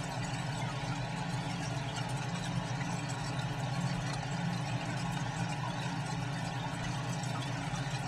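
Steady low mechanical hum with a faint even hiss above it, like running machinery.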